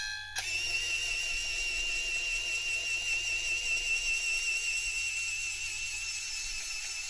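A model level-crossing bell sounds its last ring, then a small electric motor begins a steady high whine about half a second in, wavering slightly in pitch.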